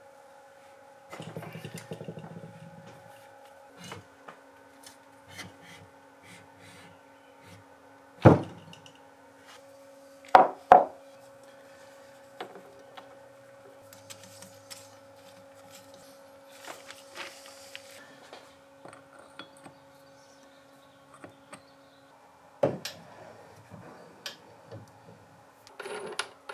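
Steel milling-machine spindle parts being handled and fitted together by hand: scraping and clicking, with a few sharp metal-on-metal knocks, one about 8 seconds in, two close together about 10 seconds in, and another about 23 seconds in. A faint steady hum sits underneath.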